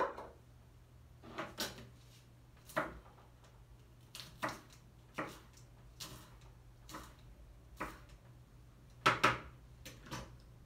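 Scattered knocks and clicks, about one a second, of bowls, a knife and a cutting board being handled on a table while ora-pro-nóbis leaves are gathered up. A louder pair of knocks comes about nine seconds in, over a steady low hum.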